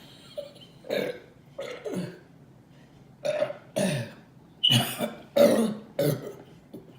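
A woman letting out a run of about eight short, deliberate burps one after another, the loudest in the second half.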